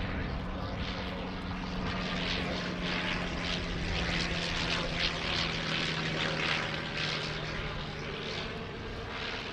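Avro 504K biplane's rotary engine and propeller running steadily. A low engine tone fades out near the end under a rushing, unsteady propeller and air noise.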